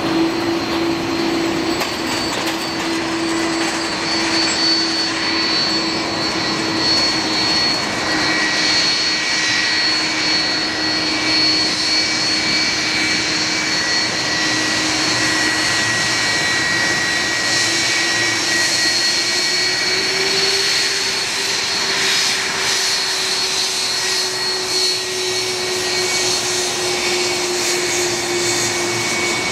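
Boeing 757-200's Rolls-Royce RB211 turbofans running at taxi thrust as the airliner taxis past: a steady jet roar with a whine, and a low hum that rises slightly in pitch about two-thirds of the way through.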